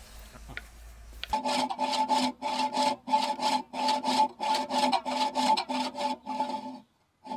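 A hand tool worked back and forth on wood, about two strokes a second, each stroke a scraping rasp with a ringing hum from the wood. It starts about a second in and stops shortly before the end.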